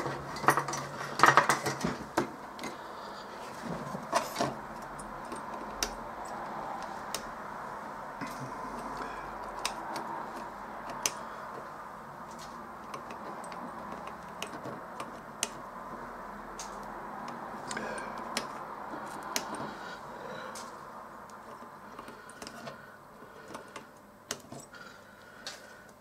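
Side cutters snipping the soldered component leads on a circuit board: single sharp clicks at irregular intervals. Metal tools clink as they are handled and set down in the first few seconds, over a steady background hiss.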